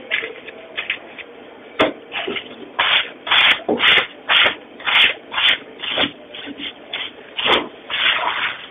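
A knife being sharpened: rhythmic scraping strokes of the blade, about two a second, with a few sharp metallic clicks.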